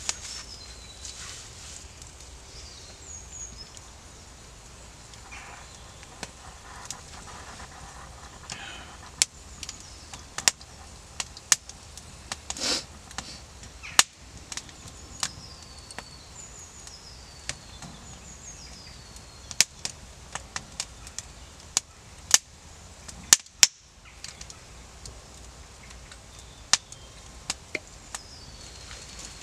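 Wood fire of thin kindling sticks crackling, with sharp irregular pops, some much louder than others. Small birds call in the background with short falling whistles.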